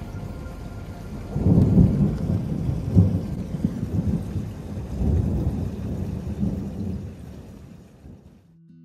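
Thunder rolling over steady rain during a lightning storm. The rumble swells about a second and a half in, surges again around five seconds, then fades and cuts off near the end.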